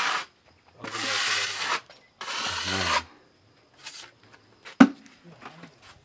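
Three rasping scrape strokes of a hand tool worked over a hard surface, each about a second long, then a single sharp click near the end.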